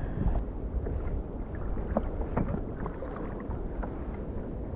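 Wind buffeting the microphone and water lapping against a sea kayak's hull, with a few small clicks.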